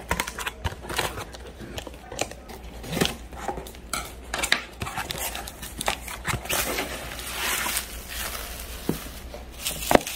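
Scissors snipping through the tape on a cardboard shipping box and the cardboard flaps being pulled open, with many sharp clicks and taps. Later comes a stretch of bubble wrap crinkling as it is unwrapped, and a sharp tap near the end.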